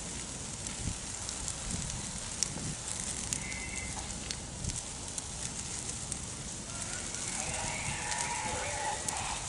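Low ground fire crackling as it burns through dry forest leaf litter: a steady hiss scattered with many sharp pops.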